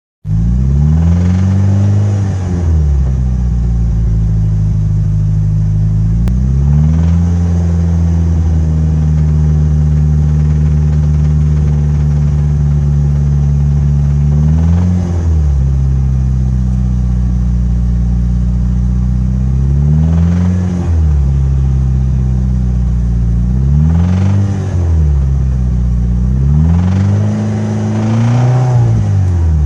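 Mitsubishi Lancer Evolution VIII's turbocharged 2.0-litre four-cylinder engine running at idle and revved briefly several times, with a rod knock. The knock comes from a spun rod bearing on cylinder 3.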